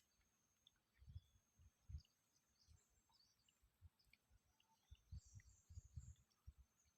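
Near silence with faint, scattered bird chirps and a few soft low thumps, the thumps coming more often near the end.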